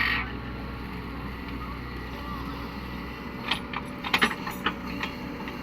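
Caterpillar 307E2 mini excavator's diesel engine running steadily, with a quick series of sharp metallic clanks about three and a half to four and a half seconds in.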